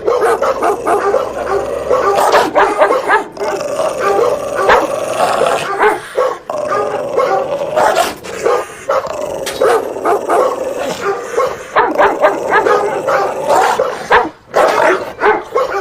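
Dog barking loudly and almost without let-up, with brief breaks about six seconds in and near the end.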